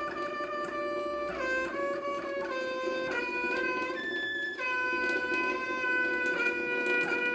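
Water tap singing: sustained whistling tones that hold steady, then jump to new pitches every second or so, over the steady rush of running water.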